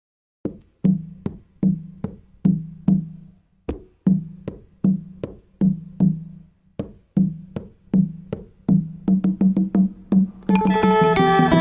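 Electronic intro music: a run of sharp, pitched drum-machine hits that quickens towards the end, then fuller synthesizer music comes in about ten and a half seconds in.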